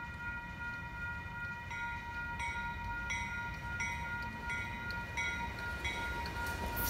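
Railroad grade-crossing signal bell ringing steadily, with struck notes about one and a half times a second, as a train approaches. A low rumble runs underneath and swells near the end.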